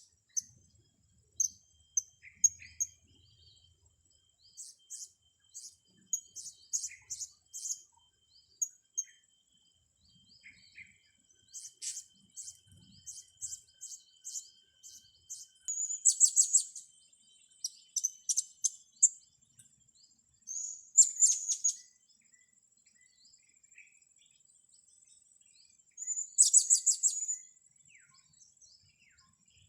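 Young blue-crowned hanging parrots (serindit) chirping: a scatter of short, high-pitched chirps, with louder trilled bursts coming several times in the second half.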